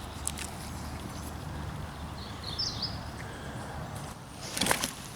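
Footsteps and rustling on the forest floor's leaf litter, with a few light clicks, a bird's short chirp about halfway through, and a louder crunching scuffle near the end.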